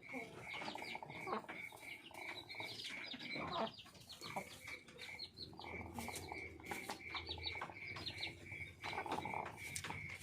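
Chickens sick with a respiratory illness (ngorok, a snoring cold) making rattly, croaking snore-like breaths and soft clucks. A steady high pulsing call repeats about three times a second in the background.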